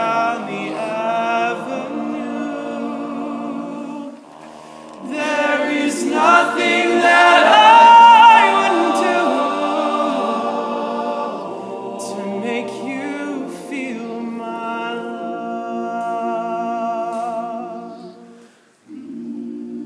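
Male a cappella group singing a slow ballad in close harmony, sustained chords under a lead voice. The singing swells to its loudest about eight seconds in as the lead climbs high, then eases back, with a short break near the end.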